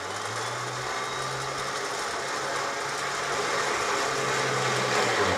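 Electric 4x4 recovery winch running steadily as it spools in the winch rope, taking up slack and bringing tension onto a double-line pull. The motor's hum grows slightly louder toward the end and stops at the very end.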